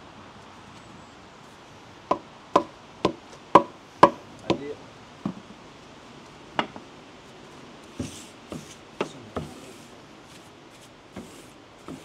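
Mallet knocking a paving slab down into its sand bed to level it: a run of about six sharp knocks roughly half a second apart, then a few spaced, lighter knocks and some scuffing.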